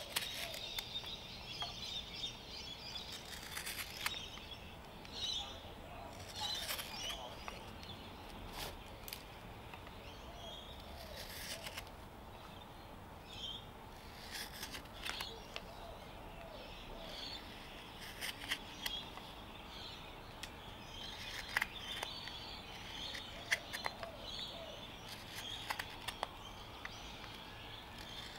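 Hook knife slicing shavings out of the bowl of a spalted birch spoon: short scraping cuts at irregular intervals. Birds chirp in the background throughout.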